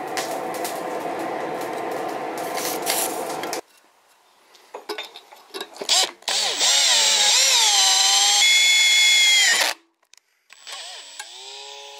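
A steady noise cuts off abruptly about a third of the way in. Then an electric drill bores through the small forged steel mouse clamped in a vise, the bit giving a loud, wavering high screech for about three seconds before it stops. A softer whine falling in pitch follows near the end.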